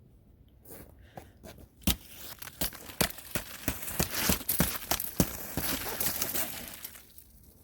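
Footsteps crunching and cracking on a thick crust of ice over snow, a quick run of sharp crunches that thickens into dense crackling and then dies away near the end.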